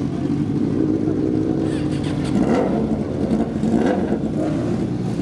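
Suzuki GSX-R motorcycle engine running steadily, with a couple of short revs in the middle.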